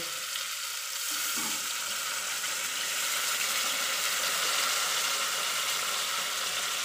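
Potato and pumpkin pieces sizzling steadily in hot oil, with ginger paste and green chillies frying in.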